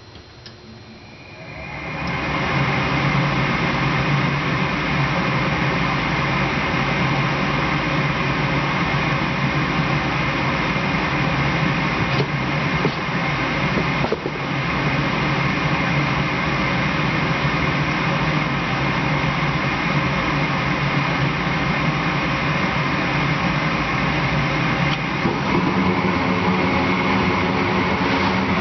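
Goodman 80% gas furnace starting up on a call for heat: a motor spins up about two seconds in and settles into a loud, steady mechanical hum, and near the end the sound changes as a deeper hum joins in.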